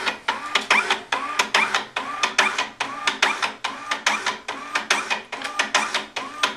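Datamax M-4308 thermal barcode printer running its automatic printhead-cleaning cycle: the feed motor drives the cleaning card through under the printhead in a rhythmic pulsing whir, about three pulses a second, each with a short rising-and-falling whine.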